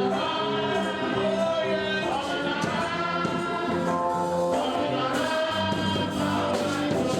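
Gospel music with choir singing and held notes, a man's voice drawing out a long "oh".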